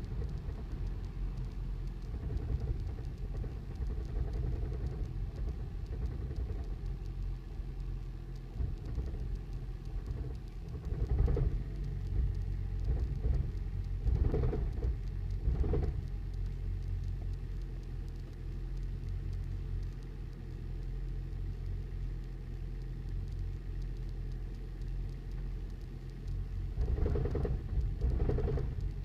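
2008 Toyota Prius's four-cylinder petrol engine running rough with an awful knocking rumble, swelling louder a few times in the middle and near the end. The knock came from failed spark plugs; replacing all four cured it.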